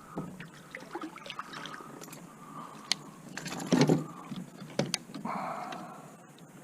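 Handling noises of fishing gear in a small boat: scattered sharp clicks and knocks, with a short louder rush of noise a little past the middle.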